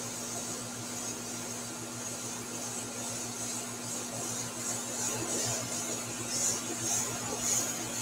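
Airbrush hissing as the artist sprays, over a steady low hum. In the second half the hiss comes in short puffs, about two a second, as the trigger is worked.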